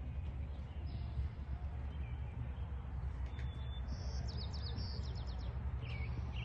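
Birds chirping: a run of short, high chirps clustered around the middle, with more near the end, over a steady low rumble.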